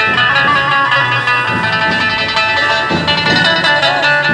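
Dhumal band music playing loudly and continuously, a dense instrumental melody over a steady rhythm.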